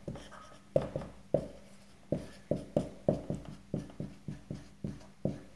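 Dry-erase marker writing on a whiteboard: a quick run of short strokes and taps, about three or four a second, as an equation is written out.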